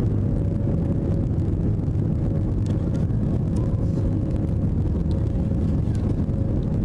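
Cabin noise of an Airbus A320 climbing after take-off: a steady low drone of engines and airflow, with a faint steady hum above it.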